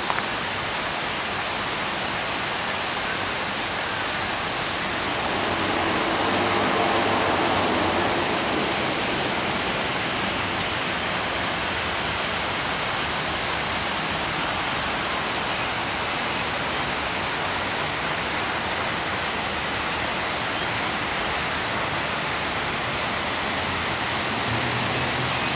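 Steady rushing of a park fountain's falling water. A faint low hum swells briefly over it about six seconds in.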